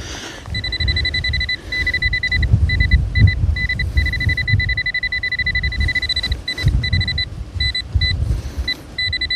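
Metal detecting pinpointer sounding a high steady tone that sometimes holds for a second or two and sometimes breaks into quick pulses, signalling metal close to the probe in the dug hole. Wind buffets the microphone underneath.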